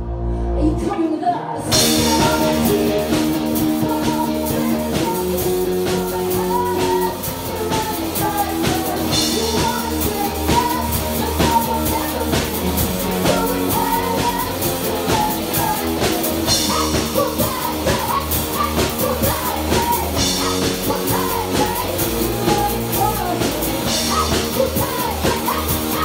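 Live rock band playing: electric guitars and a drum kit, with a woman singing. The opening is sparse, and the drums come in about two seconds in.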